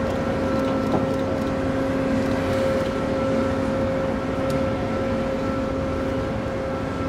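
Steady drone of heavy machinery, with a few steady hum tones in it.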